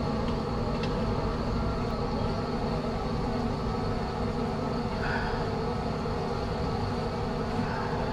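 Steady low rumble of a running forge, continuous with no breaks, with a faint brief hiss about five seconds in.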